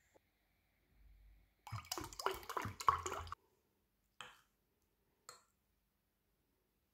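About a second and a half of close clattering and rustling, then a metal fork knocking twice on a ceramic plate as food is cut and picked up.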